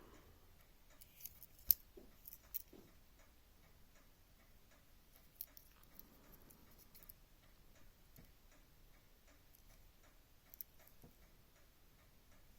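Faint, scattered small clicks and taps from a Victorinox Executive 81 Swiss Army knife being handled, its tools and scales clicking. The sharpest click comes about two seconds in, and a few fainter ones are spread through the rest.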